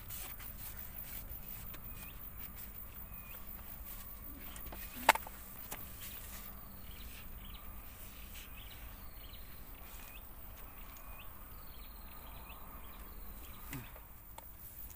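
Quiet natural ambience: faint short chirps repeating about once a second over a low steady hum, with one sharp click about five seconds in and a softer one near the end.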